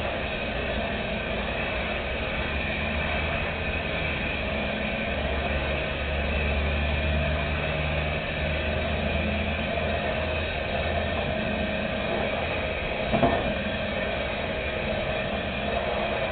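A steady mechanical motor drone with a low rumble that swells in the middle, and a single sharp click about three-quarters of the way through.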